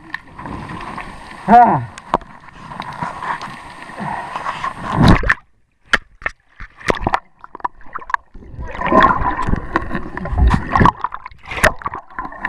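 River water sloshing and gurgling around a waterproof camera as it dips in and out of the current, with scattered clicks and knocks against the housing. A short wavering pitched sound comes about one and a half seconds in. The sound drops almost to quiet for a few seconds in the middle.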